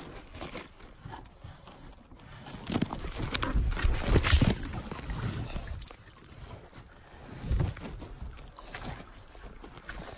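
Rustling and knocking of a handheld phone being moved close to a canoe, loudest in the middle and stopping sharply about six seconds in, then quieter footsteps on a forest floor of pine needles and roots.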